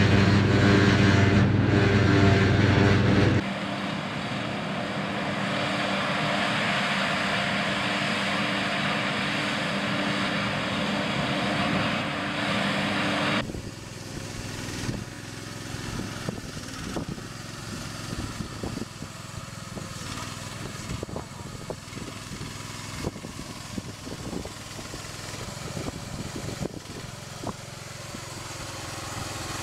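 A forage harvester's engine running loudly for the first few seconds, then a different machine running steadily for about ten seconds. After that a small engine runs more quietly under irregular clanks and knocks from a small home-built field machine.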